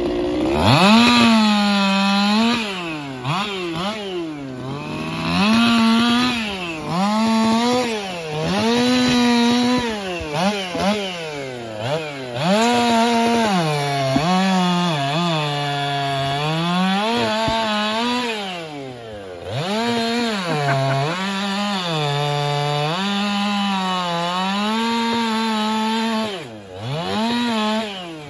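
Ported two-stroke chainsaw (a 4910) run hard while bucking logs. The engine revs up high over and over and drops back between cuts, as the chain cuts into the wood.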